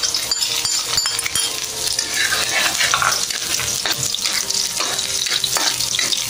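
Chopped garlic and sliced onion sizzling in hot oil in a wok, with a metal ladle scraping and clicking against the pan as it stirs.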